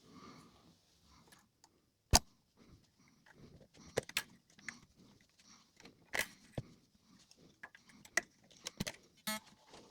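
Irregular clicks, taps and light knocks of a guitar and small hard objects being handled on a workbench during a clean-up. The sharpest knock comes about two seconds in, and a short quick rattle comes near the end.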